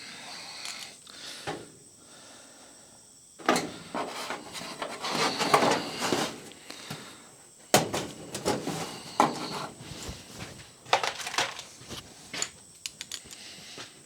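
Parts and tools being handled and moved about in a workshop: irregular knocks, scrapes and rattles in several bursts, with a run of sharp clicks near the end.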